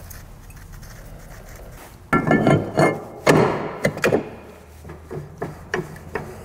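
A rear brake rotor is slid onto the hub over freshly trimmed parking brake shoes. About two seconds in comes a run of metal clanks and scraping with a brief ringing, then lighter clicks and knocks as it seats.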